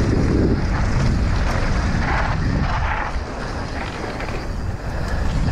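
Wind rushing over an action camera's microphone as a mountain bike rolls fast down a dirt trail, with tyre noise on the dirt and scattered small knocks and rattles from the bike.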